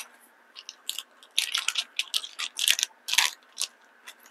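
Plastic vacuum-seal bag crinkling and crackling in irregular bursts as hands pull it open to get a cooked steak out. A few light rustles come first, then dense crackling from about a second and a half in until near the end.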